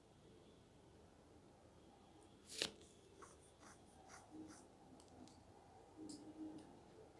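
Near silence broken by one sharp click about two and a half seconds in, then a scattering of faint taps and clicks.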